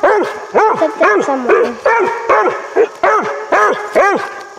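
Young treeing dog barking steadily up a tree, about two arching barks a second with no pause: tree barking, the sign it has game treed above it.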